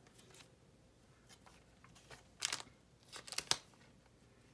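Baseball trading cards being handled, heard as a few short rustles and clicks against a quiet room. The loudest come about two and a half seconds in and as a quick cluster around three and a half seconds.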